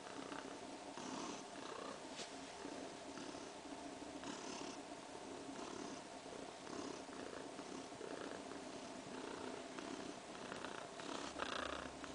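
Siberian cat purring steadily, the purr swelling and changing with each breath about once a second, the sound of a cat at ease and content.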